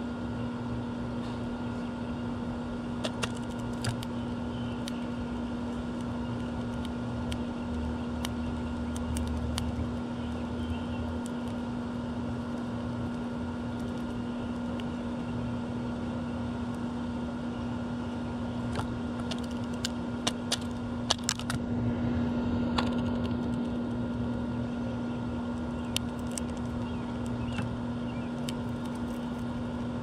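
Sharp, scattered clicks of a female northern cardinal cracking sunflower seeds at a window feeder, with a quick cluster of the loudest clicks about two-thirds of the way through, over a steady mechanical hum with a constant low tone.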